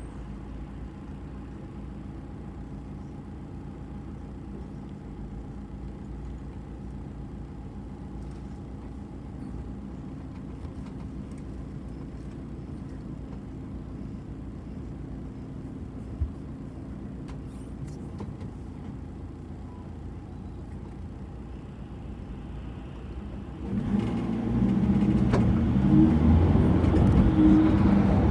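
City bus engine running steadily and fairly quietly, with one sharp click about 16 seconds in. About 24 seconds in, the engine suddenly grows much louder and stays loud, working hard as the bus pulls away.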